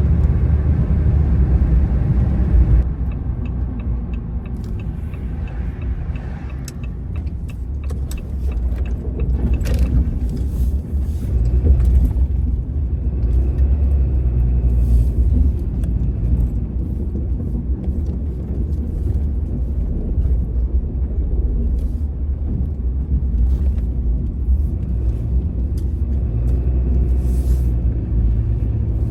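Dodge pickup truck driving off-road across a field: a steady low engine and tyre rumble, with scattered clicks and rattles through the middle stretch.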